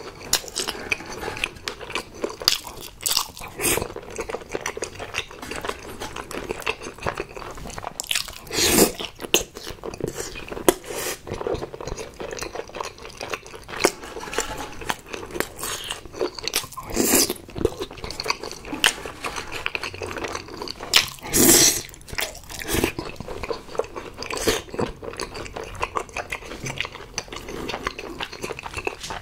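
Close-miked chewing of spicy tteokbokki and sauce-coated fried snacks: a steady run of wet chewing and crisp crunches, with several louder crunches spread through.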